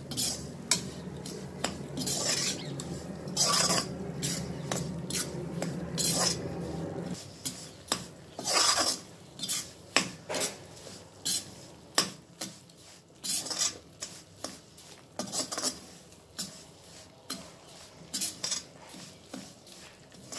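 A steel spatula scraping and stirring coarse-ground moong dal around a heavy iron kadhai in repeated uneven strokes, as the dal roasts slowly in ghee over a medium wood fire. A low steady hum stops about seven seconds in.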